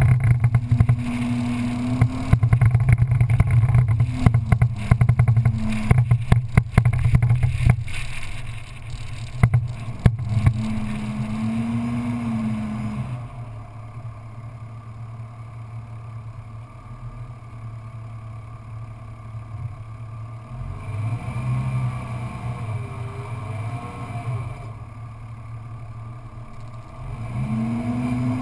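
Engine of a small off-road vehicle driving on sand tracks, its revs rising and falling as the throttle is worked, with rattling and bumping over the first ten seconds or so. About halfway through it eases off and runs quieter and steadier, then revs up again near the end.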